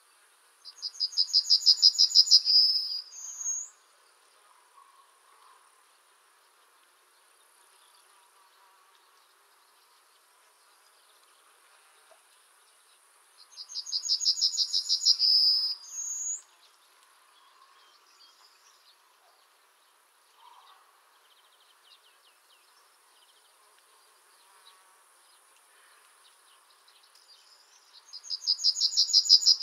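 Yellowhammer singing three songs, roughly a dozen seconds apart. Each song is a fast run of a dozen or more repeated high, dry notes ending in a separate higher note. The third song starts near the end and runs on past it.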